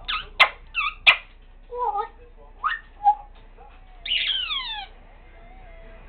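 African grey parrot making a string of short vocal sounds that the owner calls crying: two sharp clicks, squeaky chirps and short whistles, then a longer falling whistled wail about four seconds in.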